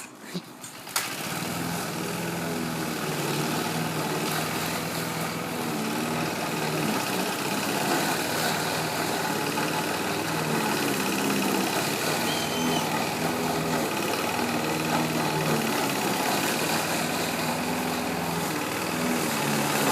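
Lawn mower engine catching about a second in, after a couple of sharp clicks, then running steadily with a slightly wavering pitch.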